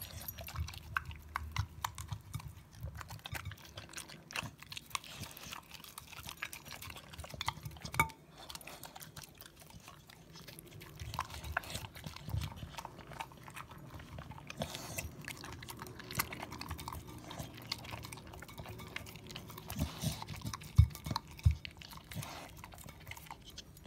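Staffordshire Bull Terrier eating raw meat from a ceramic plate: steady wet chewing and mouthing, with irregular clicks as teeth and muzzle knock the plate and a few louder knocks near the end.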